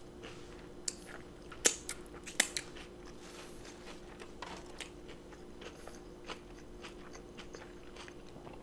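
Close-up mouth sounds of a person chewing a bite of elk cheeseburger: soft wet clicks, the sharpest about a second and a half and two and a half seconds in, then quieter chewing.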